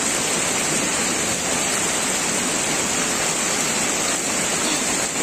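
Steady, unbroken rush of water noise, even and constant throughout.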